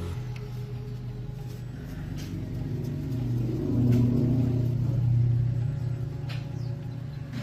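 Truck engine running with a steady low hum that swells louder for a couple of seconds midway, then settles, with a few light clicks.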